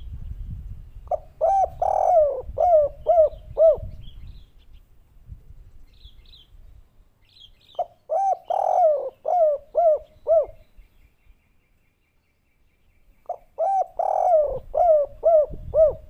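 Spotted dove (derkuku) cooing in the song type hobbyists call 'kuk 3': three phrases, each a quick run of about seven or eight mellow rising-and-falling coos, spaced several seconds apart.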